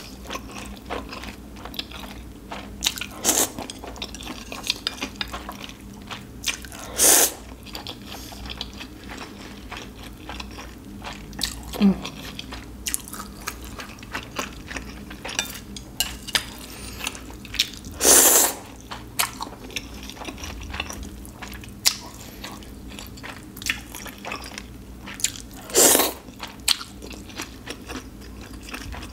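Close-miked eating of ramen noodles and pan-fried dumplings: noodle slurps and chewing with wet mouth clicks and smacks throughout, and a few louder slurps spread across the stretch.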